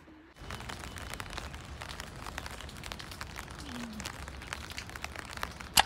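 A steady crackling hiss full of small ticks, with one short, sharp high-pitched sound near the end.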